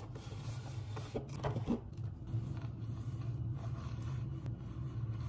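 Cardboard cake box being opened and handled, with a few short scrapes and rustles in the first couple of seconds, over a steady low hum.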